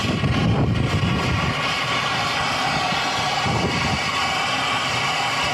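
Turbo Torch air-acetylene torch burning with a steady hiss, its flame held on a copper refrigerant line to braze over a pinhole leak. Low gusts of wind hit the microphone in the first second and a half.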